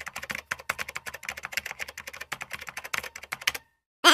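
Rapid computer-keyboard typing clicks, a sound effect accompanying on-screen text being typed out, stopping shortly before the end.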